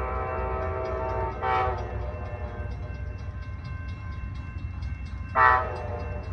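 Locomotive air horn of an approaching train, unseen in the distance, sounding a long chord that fades, with a short louder blast about a second and a half in and another near the end, over a low steady rumble.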